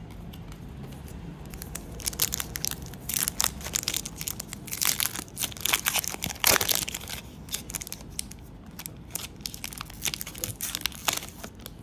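Foil wrapper of a trading-card pack crinkling and tearing as it is opened by hand. A dense run of sharp crackles builds about two seconds in, is thickest in the middle and thins out near the end.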